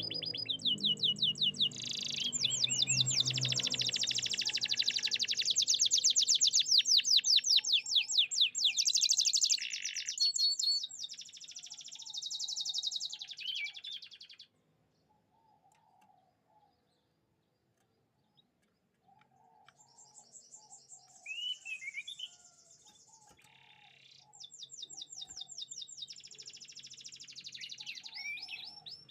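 Canary singing long, fast trills and rolling warbled phrases. It goes quiet for about five seconds midway, then starts again with more rapid trills.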